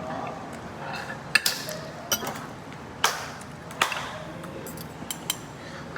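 Spoon and fork clinking against plates while eating, about six sharp clinks spaced irregularly a second or so apart, over low room noise.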